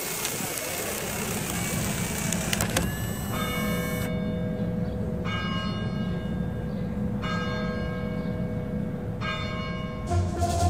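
Church bell tolling, each stroke ringing on with many overtones and a new stroke roughly every two seconds, after about three seconds of outdoor street noise. Music starts just before the end.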